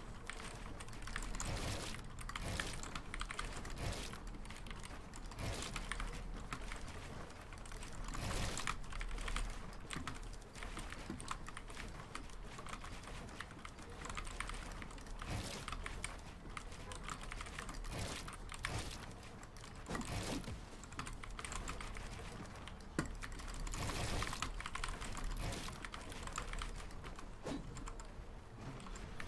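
Asceny One 60% mechanical keyboard with Gateron Brown switches, its keys pressed in quick, irregular runs of clicking and clacking.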